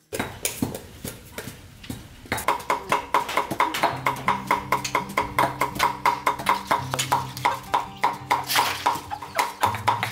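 Cleaver chopping red chillies into a paste on a round chopping block: sharp, rapid strokes that settle into a steady, even rhythm of about four or five a second about two seconds in.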